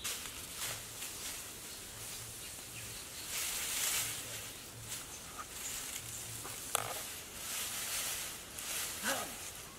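Forest background sound: a steady high hiss with a few scattered bird calls and short clicks or rustles.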